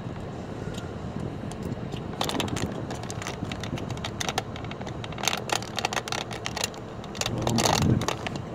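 Car rolling slowly, heard from inside the cabin: a steady low hum, with a run of irregular clicks and crackles from about two seconds in and a louder rumble near the end.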